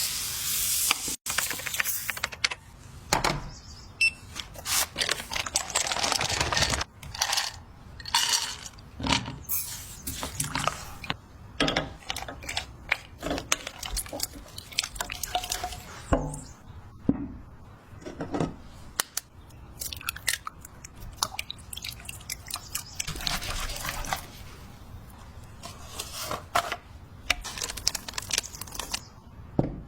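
Irregular close-up kitchen handling sounds of cake making: many short taps, scrapes and soft squishes of utensils working cake and cream, coming every half second to second or so.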